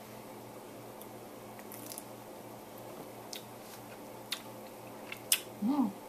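Quiet mouth sounds of a man tasting a drink: a few small wet clicks and lip smacks over a low steady room hum, with a sharper click about five seconds in and a short hummed "mm" near the end.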